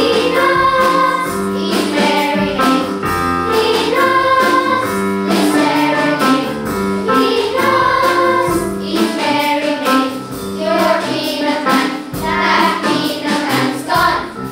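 Children's school choir singing a song together.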